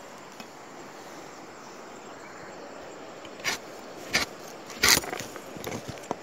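Someone moving through dry brush on foot: a few sharp crunches and scrapes, the loudest about five seconds in, over a steady outdoor hiss.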